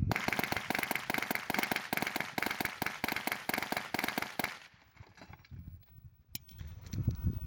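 A rapid string of sharp bangs, many a second, lasting about four and a half seconds and then stopping, with one more single sharp crack about six seconds in.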